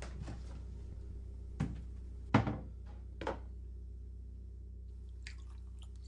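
Three knocks from things being handled at a kitchen counter, the middle one loudest, then a few faint small clicks near the end, over a low steady hum.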